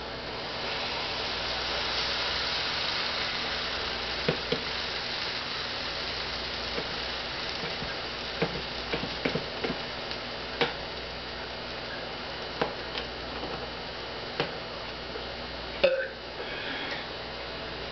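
Pancakes frying in a pan on high heat, a steady sizzle that swells about a second in. Scattered sharp clicks and knocks sound over it, the loudest about sixteen seconds in.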